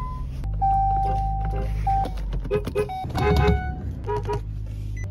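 Car horns honking: one steady horn note held for about a second, then a quick run of short toots, over a steady low hum.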